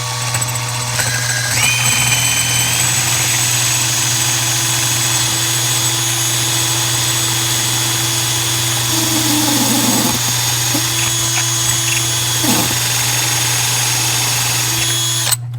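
Power drill with a 5/32 bit spinning up with a rising whine, then running steadily as it drills into a pop rivet, stopping suddenly near the end. The bit is too small to get the rivet out.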